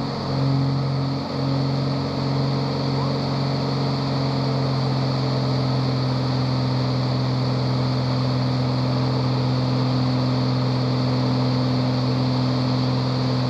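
Piston engine of a single-engine propeller aerobatic aircraft running steadily, a constant drone heard from inside the closed cockpit, with a couple of slight dips in the first two seconds.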